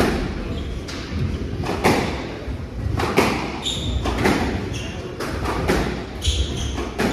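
Squash rally: the hard rubber ball cracking off rackets and the court walls about once a second, ringing in a large hall, with short squeaks of court shoes on the wooden floor.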